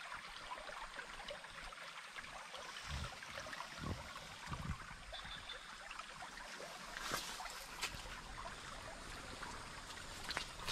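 Shallow stream trickling over a gravel and stone bed, heard right at the water surface, with a few soft low knocks and a couple of sharp clicks.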